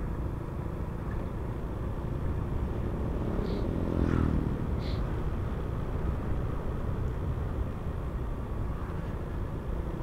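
Honda Supra X125 FI's single-cylinder 125 cc four-stroke engine running steadily under way, over a low rumble of wind and road noise, swelling briefly about four seconds in.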